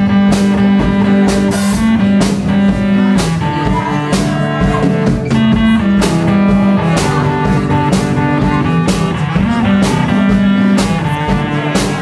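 Live rock band playing an instrumental passage: amplified guitar notes over a drum kit keeping a steady beat with cymbal hits.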